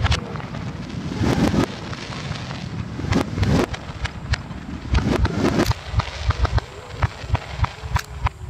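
Fireworks display played backwards: bursts of shells and crackling stars whose echo swells up and then cuts off abruptly, ending in a rapid run of bangs about three a second, with faint whistles.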